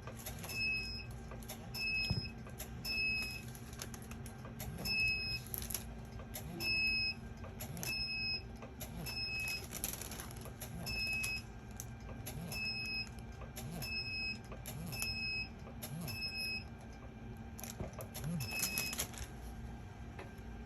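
Radiofrequency microneedling device beeping: a short high beep repeating about every two-thirds of a second as the handpiece is worked over the scalp, with faint clicks.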